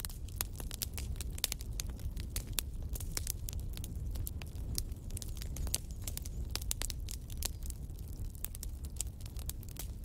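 Wood fire in a fireplace crackling, with frequent irregular sharp pops and snaps over a steady low rumble of the flames.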